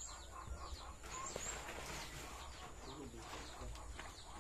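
Faint farmyard background of birds calling, with short high chirps near the start and about a second and a half in, and a brief rustling stretch around two seconds in.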